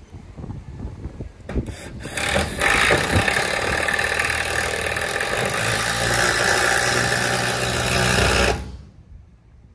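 Power drill driving a stainless roofing screw into metal roof sheeting, a loud steady run of about six seconds that starts about two seconds in and cuts off suddenly.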